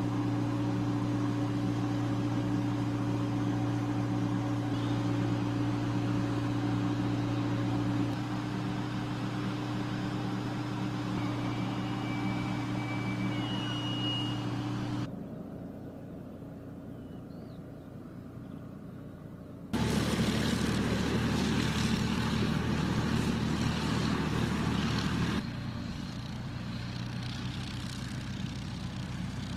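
Tor-M2 air-defence vehicle's engine running with a steady hum. The sound cuts abruptly several times between louder and quieter stretches, the loudest and roughest coming about two-thirds of the way through.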